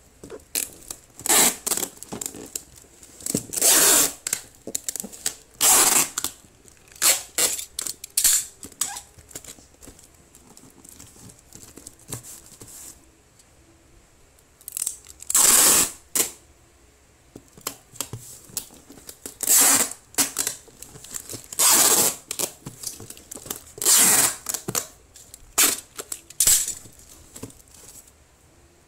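Brown packing tape being pulled off its roll in short screeching strips and pressed onto a cardboard box. The strips come in irregular runs, with a quieter pause in the middle.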